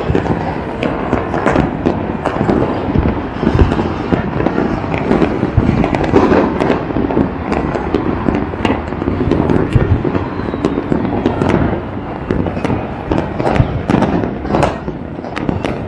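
Many fireworks and firecrackers going off across a city at once: a continuous din of bangs and crackling with sharp reports, some close and loud, others far off.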